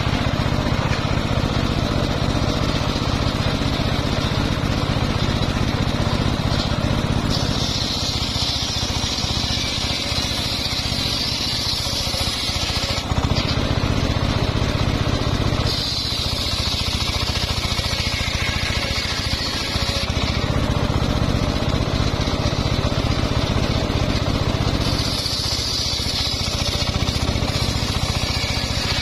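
Homemade circular-saw bench ripping a mahogany log lengthwise: a steady low drone from the saw's drive, with three spells of several seconds of louder, high-pitched cutting noise as the blade bites through the wood, about a quarter of the way in, around the middle, and near the end.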